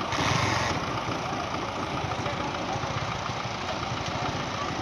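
Belarus tractor's diesel engine running steadily at idle, with a brief louder rush of noise in the first second.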